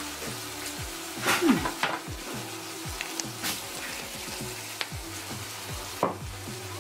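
Chicken and vegetables sizzling in a frying pan: a steady hiss with scattered crackles and pops.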